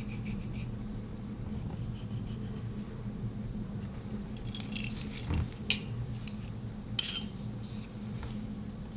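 Scattered light clicks and small scrapes of a metal Swiss Army knife being handled, a handful of separate clicks over a low steady hum.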